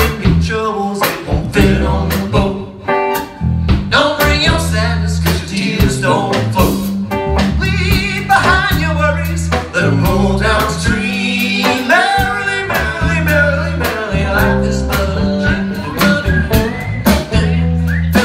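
Live band playing an upbeat roots-rock song: drum kit, bass, electric guitar, saxophone and trombone, with a sung or horn melody line over a steady bass.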